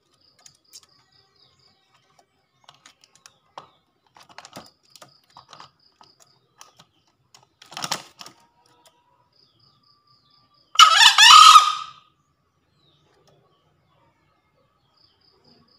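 A male green junglefowl crows once, about eleven seconds in: a short, hoarse call lasting about a second. A briefer, softer sound comes a few seconds before it, among faint scattered clicks.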